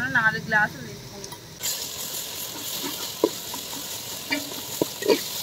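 Onions, green chillies and ginger-garlic paste sizzling in hot oil and ghee in a metal pot, with a slotted metal spatula scraping and knocking against the pot as it is stirred. The sizzle starts about one and a half seconds in.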